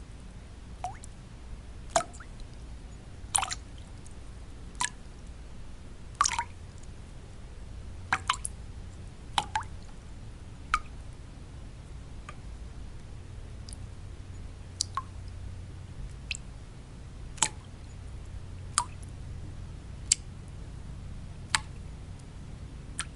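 Water drops falling one at a time, about one every second or so at uneven spacing, each a short plink rising in pitch, over a steady low white-noise hum.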